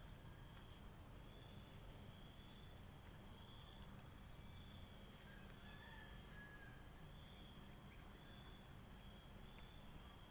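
Faint, steady chorus of insects such as crickets, with a higher trill that pulses about once a second.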